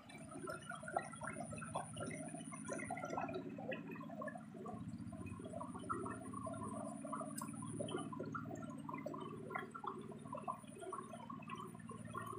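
Water gurgling and splashing in quick, irregular bursts, over a steady low hum.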